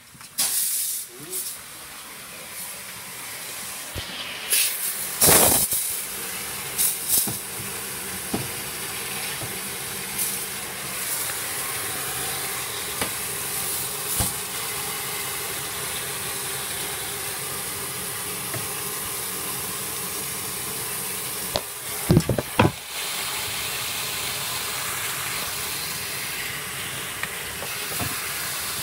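Steady hiss of water escaping from a freeze-burst fresh-water pipe, with a few handling knocks and bumps, one about five seconds in and a quick cluster about three-quarters of the way through.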